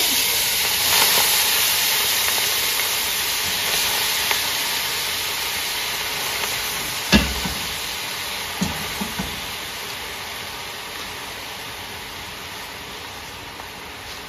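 Green salad leaves sizzling in hot melted butter in an enamelled cast-iron casserole, the hiss fading steadily. A sharp knock about seven seconds in, then a few lighter knocks.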